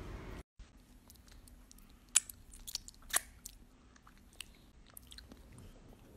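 A small child eating close to the microphone: wet chewing and lip-smacking clicks, with two louder smacks about two and three seconds in.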